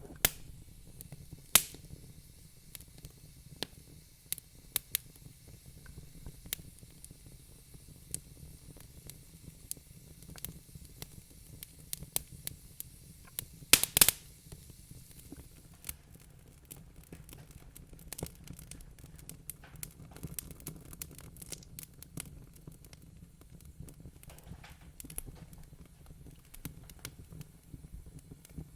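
Wood fire crackling in a fireplace: irregular sharp pops and snaps over a low, steady rumble, with a loud cluster of pops about halfway through.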